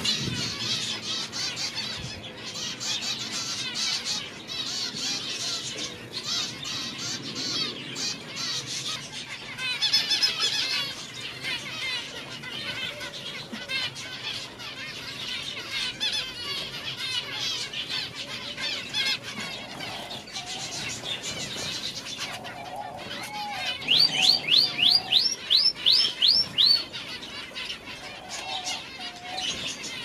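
A flock of zebra finches in an aviary chattering with many short overlapping calls. About three quarters of the way through, one bird gives a quick run of about eight loud rising chirps.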